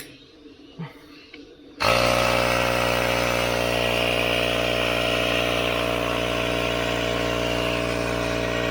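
Electric air compressor switching on about two seconds in and running steadily, inflating the new tyre.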